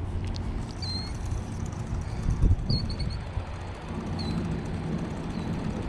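Steady low hum with a few short high chirps and a dull bump about two and a half seconds in.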